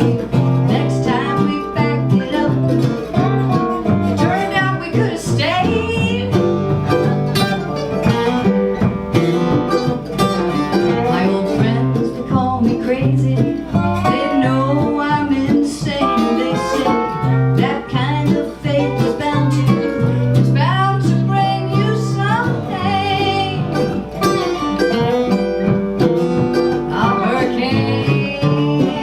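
Live acoustic country-folk song in an instrumental break: plucked guitars, the lead line bending its notes.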